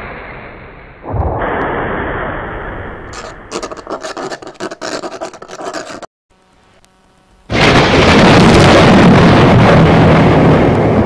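Soundtrack sound effects: a low rumble with crackling, cut off abruptly about six seconds in to near silence with a faint hum, then a loud, steady rush of rain and thunder from about seven and a half seconds in.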